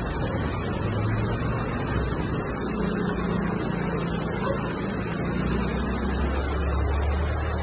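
Steady rain falling, heavy enough that a downspout runs into a bucket, with a low hum underneath that grows louder near the end.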